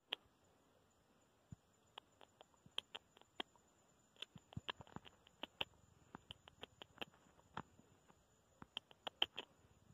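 Agouti gnawing and cracking open rubber tree seeds: faint, irregular sharp cracks and clicks, coming in quick clusters at times.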